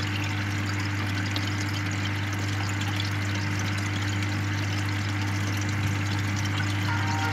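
Aquarium air stone bubbling steadily in the water, over the steady low hum of the electric air pump that feeds it.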